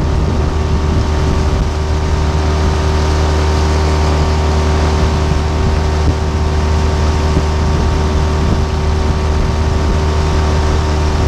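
Small outboard motor pushing an inflatable dinghy at a steady speed: a steady drone whose pitch does not change.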